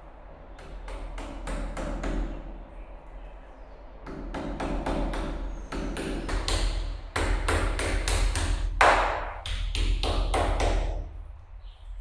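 A hammer tapping plastic wall plugs into freshly drilled holes: runs of sharp taps, several a second, with short pauses between the runs.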